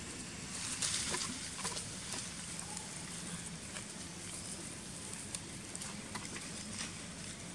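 Rustling and light patter of macaques scampering over dry leaves and grass, with a louder burst of rustling about a second in and scattered small clicks, over a steady outdoor hiss.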